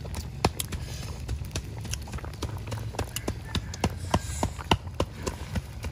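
Wood and bamboo fire crackling under a cooking pot: many sharp, irregular pops, several a second, over a low steady rumble.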